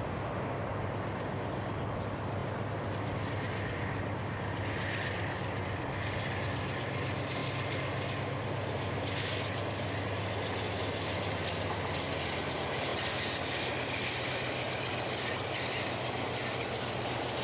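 Amtrak passenger train running past, its diesel locomotive engine giving a steady low hum, with wheels clicking on the track that grow stronger in the last few seconds.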